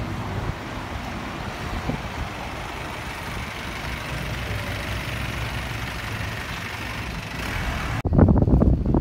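Steady outdoor street noise, mostly road traffic going by. About eight seconds in it cuts abruptly to louder wind buffeting the microphone in gusts.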